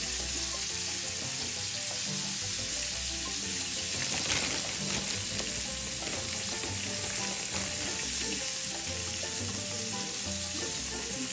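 Cod frying in oil in a pan: a steady sizzle.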